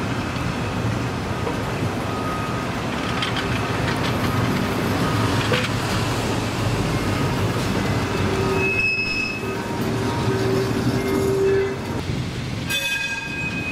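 Historic streetcar steel wheels rolling over curved track, a steady rumble and grinding. From about eight seconds in, intermittent high wheel squeals come through.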